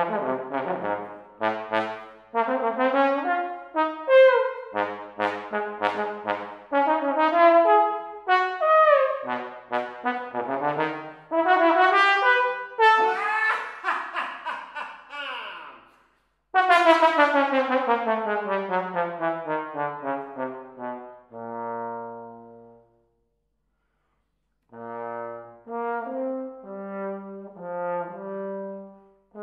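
Solo trombone playing fast, jagged, leaping phrases with slides. About halfway through, the player's own voice bursts out in a loud laugh. Then a sudden loud note starts a long falling line, and after a pause of about two seconds the playing resumes.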